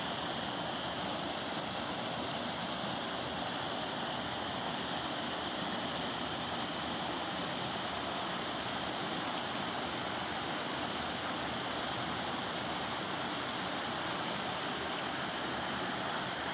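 Steady rushing of water as a small waterfall pours over rocks into a spring-fed pool.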